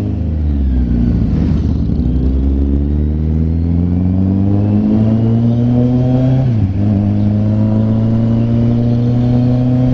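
Kawasaki Z900's inline-four engine pulling the motorcycle along. Its pitch dips just after the start and then climbs steadily, drops at a gear change about two-thirds of the way through, and climbs again.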